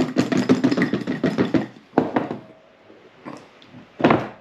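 Kitchenware clattering rapidly for about a second and a half, then one sharp knock about two seconds in.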